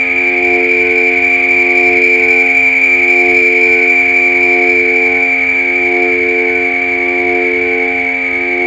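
FM synthesizer drone from a Korg Volca Modular: several steady low tones that dip and swell together about every two and a half seconds, over a steady bright band of noise higher up.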